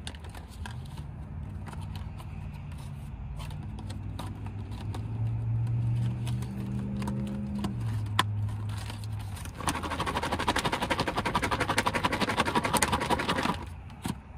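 A man hums a few low, held notes. Then a salad is shaken hard in its plastic takeout container for about four seconds to toss in the Italian dressing: a fast, dense rattle that stops abruptly.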